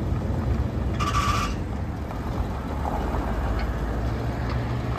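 1980 Chevrolet C30 dump truck's engine running at low speed as the truck creeps forward a short way, with a brief hissing squeal about a second in.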